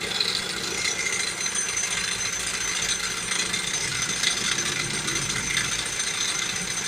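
A running machine with a rapid, steady rattling knock from its friction wheel, which hangs loose and shakes beside the pump pulley.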